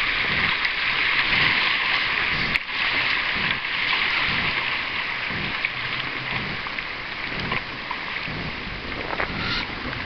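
Shallow river riffle rushing and splashing around a canoe: a steady hiss of fast white water that eases a little in the second half as the canoe reaches calmer water.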